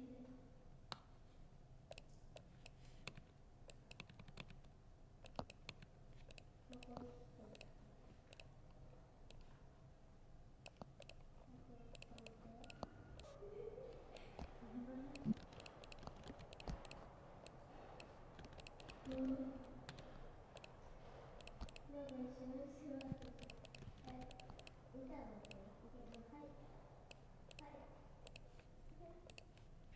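Typing on a laptop keyboard: soft, irregular key clicks, with faint voices murmuring in the background.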